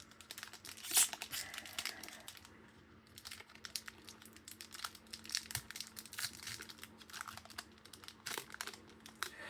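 Thick, stiff foil wrapper of a Magic: The Gathering collector booster pack crinkling and tearing as it is opened. The crackles are irregular, with a sharper one about a second in.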